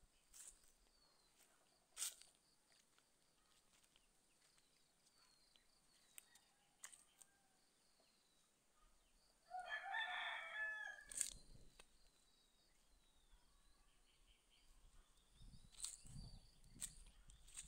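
A rooster crows once, a call of about a second and a half near the middle, over faint high chirping. Otherwise near silence, broken by a few sharp clicks.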